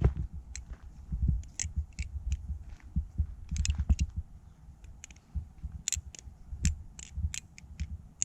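Balisong (butterfly knife) being flipped: irregular sharp metal clicks and clacks as the handles swing around the pivots and knock against each other, with dull low knocks of handling underneath. The pivots still have some tap after tuning.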